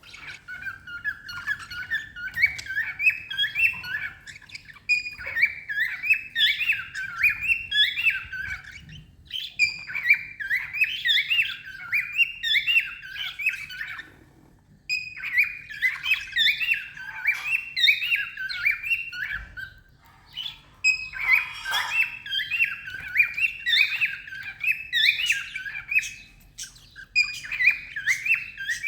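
Cockatiels singing: bouts of quick, repeated warbling chirps and whistles, each run lasting a few seconds, with short pauses between them.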